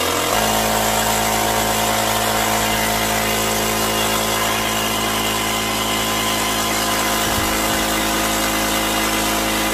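Built-in air compressor of a CAT PPSCL3 lithium power station starting up and running steadily, pumping air into a basketball through a needle valve.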